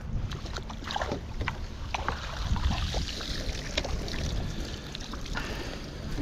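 An 8-foot cast net being hauled hand over hand out of the water, with water streaming and dripping off the mesh in a patter of small splashes.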